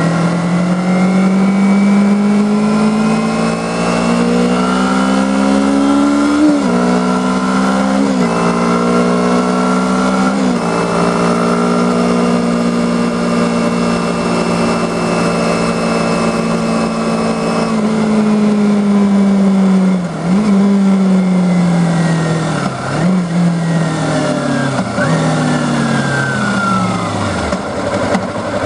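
2010 Kawasaki Ninja 250R's parallel-twin engine pulling hard with rising pitch, broken three times by a sudden drop as it shifts up, then holding a steady cruise. Later the pitch falls away as the bike slows, with several quick dips and jumps as it shifts down. Steady wind and road rush runs underneath.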